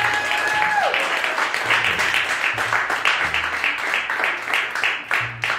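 Crowd applauding, many hands clapping, thinning out toward the end, with a held high note over the clapping that breaks off about a second in.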